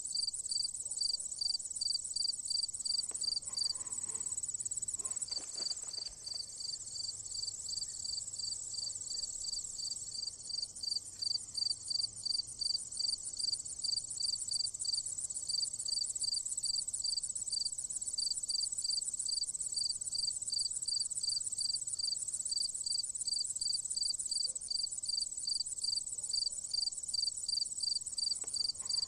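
Singing insects: a steady high-pitched buzz with a second insect chirping evenly about two to three times a second.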